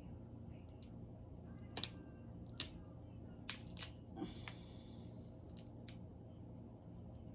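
King crab shell being cracked open: a handful of sharp cracks and snaps, a couple close together, over a steady low hum.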